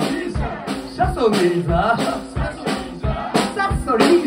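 Live rockabilly band playing: slapped upright bass, drums and hollow-body electric guitars with a steady beat about twice a second.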